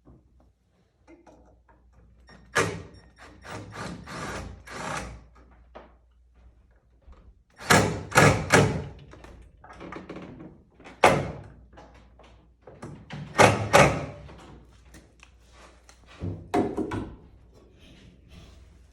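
Irregular clusters of thunks and knocks, with quieter handling noise between them; the loudest come about eight and thirteen seconds in.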